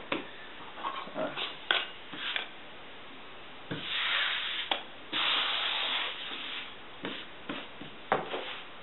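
A few soft taps of a hand pressing on wet bread dough, then two rasping sweeps of about a second each near the middle as a hand brushes flour across the countertop.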